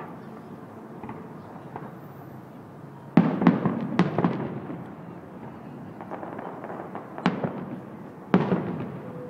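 Aerial fireworks shells bursting: a quick run of about five sharp bangs about three seconds in, then one more bang a few seconds later and another near the end, each trailing off briefly.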